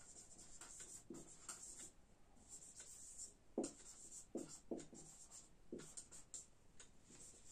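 Whiteboard marker writing on a whiteboard: a run of faint, irregular strokes as the words are written out letter by letter.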